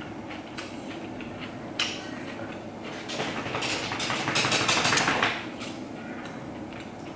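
Close-miked eating sounds: chewing with a few sharp mouth clicks, then a louder stretch of rapid clicking and clatter from about three to five and a half seconds as a spoon goes into a bowl of tom yum soup.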